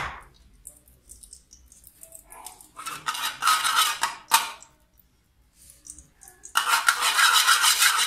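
Metal spoon scraping and clinking around the inside of an aluminium saucepan. There are two bouts of rapid scraping: the first about three seconds in, ending in a sharp clink, and the second starting near the end.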